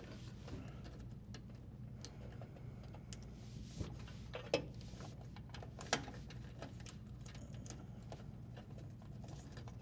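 Hands working electrical wires and wire nuts into a dishwasher's junction box: faint scratching and handling noise with three short, sharp clicks near the middle, over a steady low hum.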